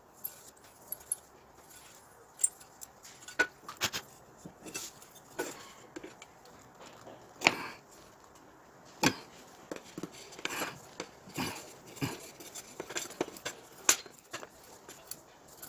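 Irregular light knocks and clicks of hard objects being handled, with three sharper knocks about seven and a half, nine and fourteen seconds in.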